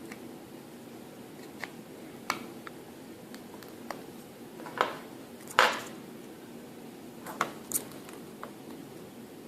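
Scattered small clicks and taps of tweezers and small phone parts being handled on the Galaxy S3's frame, about six clear ones, the loudest a little past halfway.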